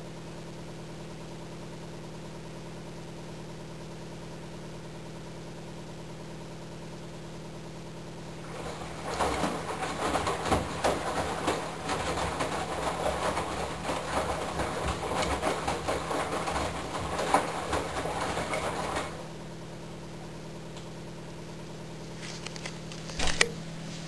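Candy GrandO Plus front-loading washing machine running: a steady machine hum, with about ten seconds of water sloshing and laundry tumbling in the turning drum starting about a third of the way in. The sloshing stops and the hum continues, with a couple of sharp knocks near the end.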